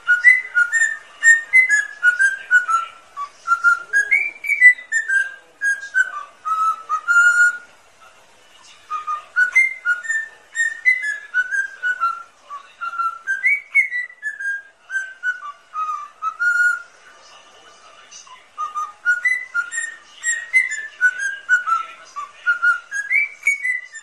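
Cockatiel whistling a learned melody in clear, stepping notes, in three phrases broken by short pauses.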